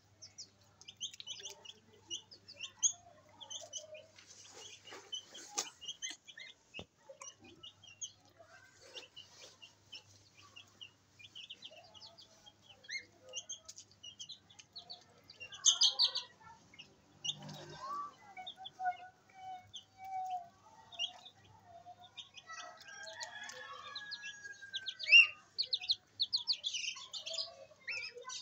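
Young goslings peeping: many short, high calls throughout, with a few longer, lower drawn-out calls in the second half.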